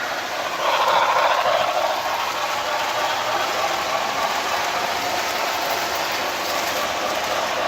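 Sound-equipped HO scale Broadway Limited Imports Paragon4 New York Central 4-6-4 Hudson running, its onboard steam locomotive sounds mixed with the mechanical clatter of the model's running gear and wheels on the track. Steady, a little louder about a second in.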